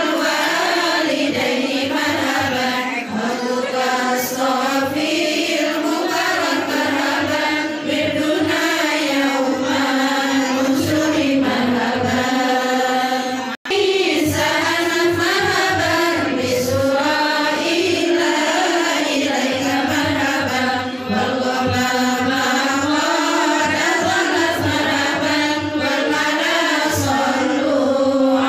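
Group of women and girls chanting a devotional sholawat in praise of the Prophet in unison, with a melodic, gliding line. The sound drops out for an instant about halfway through.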